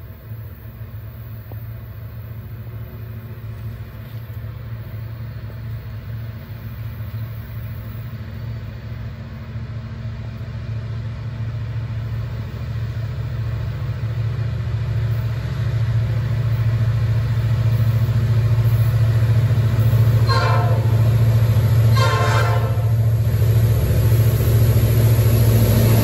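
Approaching diesel freight locomotives running with a steady low engine drone that grows louder as they near. Two short horn blasts come about 20 and 22 seconds in, the second a little longer.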